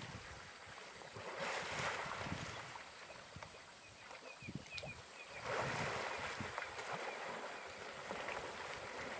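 Water splashing and sloshing as young African elephant bulls wrestle in a waterhole, with heavy swells of splashing about a second and a half in and again about five and a half seconds in, and low thuds of bodies in the water.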